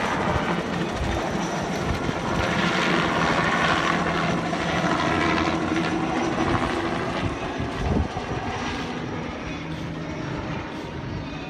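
Helicopter passing over, its rotor and engine loud for the first several seconds and then fading as it moves away. A single short thump comes about eight seconds in.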